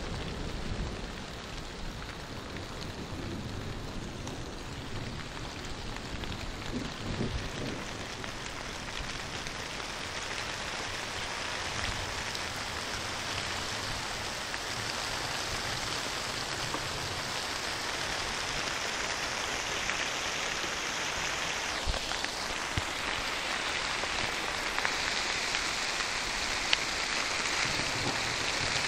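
Steady rain hissing during a thunderstorm, getting louder and brighter toward the end. A low rumble of thunder fades out in the first second.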